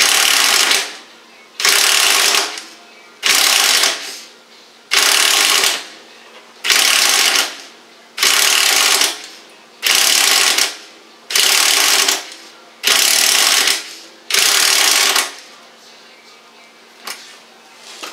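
Impact wrench hammering on a seized, rusted lower control arm bolt in about ten short bursts of about a second each, trigger pulled again every second and a half or so, then stopping.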